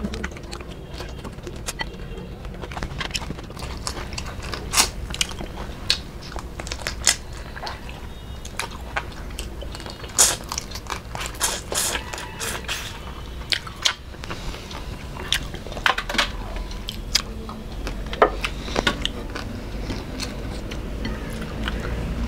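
Close-up eating sounds: chewing and crunching of fried prawns and fish eaten by hand, with irregular sharp crackles as the prawn shells are broken and pulled apart.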